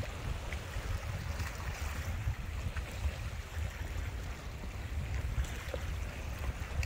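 Wind gusting on the microphone as an uneven low rumble, over small waves washing against shoreline rocks.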